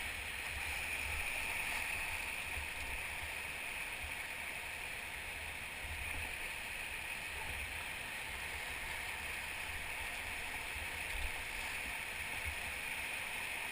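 Whitewater river rushing and gurgling steadily around a raft, heard through a GoPro's waterproof housing, with a low rumble underneath.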